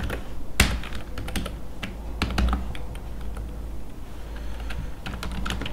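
Typing on a computer keyboard: a run of irregular keystroke clicks, one louder click about half a second in.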